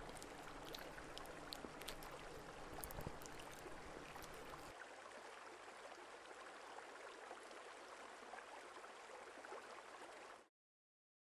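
Steady rushing-water ambience, a constant wash of water noise, with a few faint ticks in the first few seconds. It cuts off suddenly near the end.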